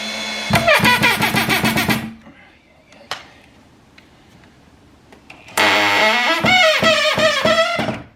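Cordless drill driving screws into wood, in two runs of about two seconds each, the motor's whine dropping in pitch as it labours. The screws are going in harder than expected.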